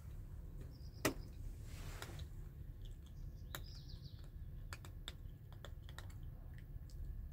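Cat chewing and smacking on food from a small tin, a run of small wet clicks and smacks with one sharp click about a second in, over a steady low background rumble.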